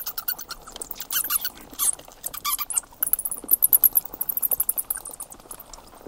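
A bat squeaking and chittering: rapid runs of very high-pitched chirps, with a few lower, louder squeaks mixed in.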